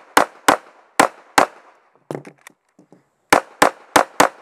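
Handgun fired in rapid succession during a practical-pistol stage: four shots, a pause of about two seconds with a few softer knocks and clatter, then five quick shots near the end.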